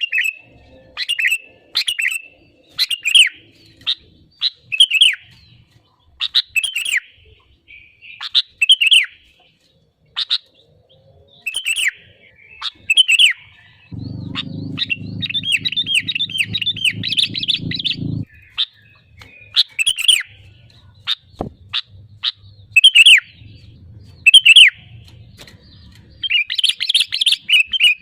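Sooty-headed bulbul (kutilang) singing loud, short whistled phrases, repeated every second or two. About halfway through it breaks into a few seconds of rapid chattering over a low rumble.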